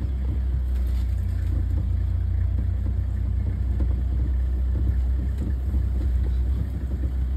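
Safari vehicle's engine idling, a steady low rumble.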